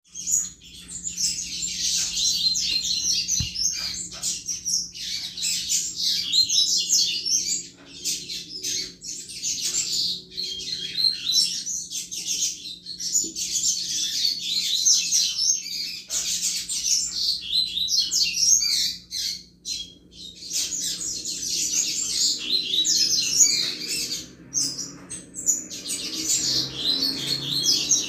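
Coleiro (double-collared seedeater) singing the fast 'chuva' style of song: rapid, high twittering in long phrases broken by short pauses.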